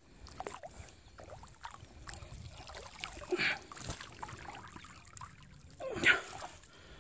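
Water splashing and dripping as a fishing net is pulled up out of a river, with two louder splashes about three and a half and six seconds in.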